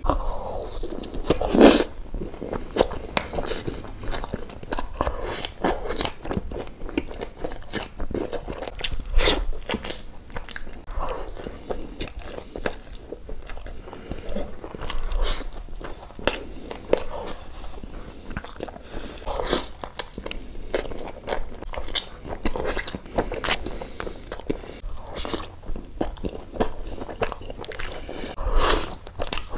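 Close-miked eating of chicken in thick curry gravy by hand: chewing and biting heard as a dense, irregular run of short wet clicks, with a few louder bites about 2 s, 9 s and near the end.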